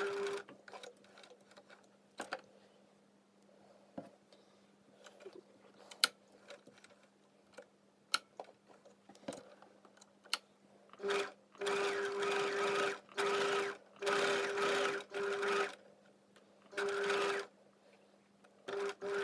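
Domestic electric sewing machine stitching in short runs of about a second, with a steady motor hum in each run and brief stops between. Before the runs there is a long pause filled with light clicks and taps, which fits lifting the presser foot to pivot the fabric at a pocket corner.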